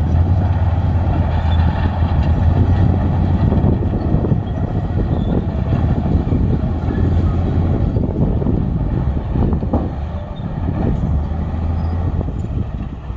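Heavy diesel earthmoving machinery running under steady load with a deep, constant engine drone. A few metallic knocks come in the last few seconds.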